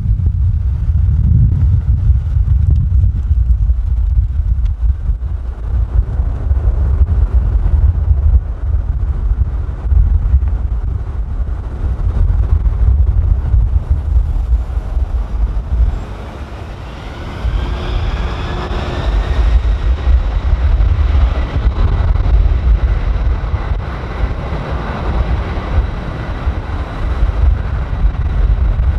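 Low rumble of wind on the microphone and passing road traffic. About halfway through, a jet airliner's engine whine comes in over it and rises in pitch.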